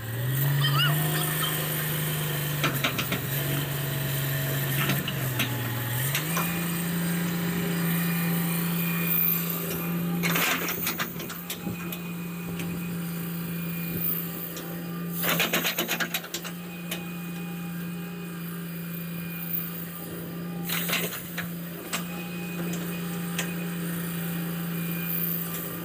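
Daewoo Solar 200W wheeled excavator's diesel engine running under hydraulic load, its drone stepping up and down in pitch for the first few seconds, then holding steady at a higher pitch. Three short loud bursts of noise break over it.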